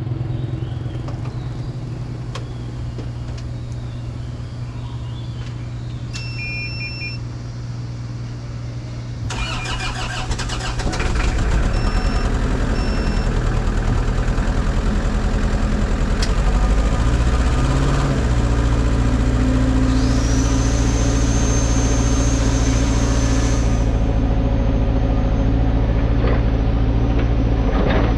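Kubota KX161 mini excavator's diesel engine being started: a few short warning beeps, the starter cranking about a third of the way in, then the engine catches and runs steadily and louder, with more beeps just after. A high whine sounds for a few seconds later on.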